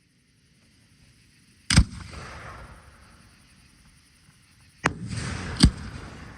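Aerial fireworks shells bursting: three sharp bangs, one about two seconds in and two close together near the end, each followed by a fading crackling tail.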